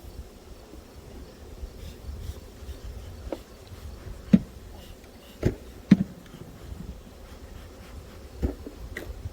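Honeybees buzzing steadily around an open hive during harvest, with four sharp knocks spread across the middle and end.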